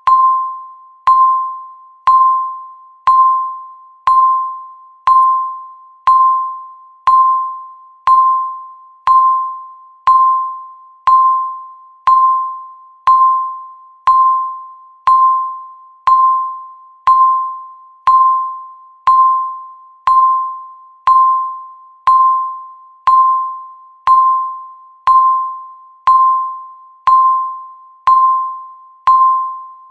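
Countdown timer ticking off the seconds with an electronic beep: one mid-pitched chime-like beep each second, each starting sharply and fading away before the next.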